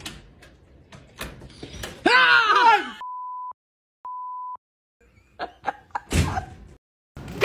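A person's loud cry, then two censor bleeps: steady single-pitch tones of about half a second each, cut in with dead silence around them. A few knocks and a louder thump follow.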